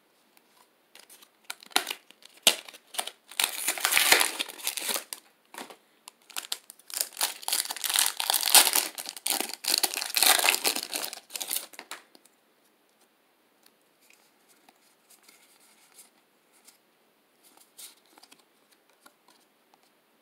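Foil wrapper of a Pokémon trading card booster pack being crinkled and torn open, crackling in quick loud bursts for about ten seconds. After that, only faint rustling as the cards are handled.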